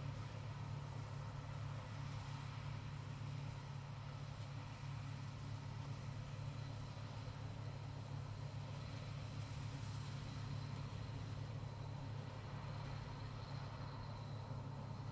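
A steady, low mechanical hum with an even wash of noise above it, unchanging throughout.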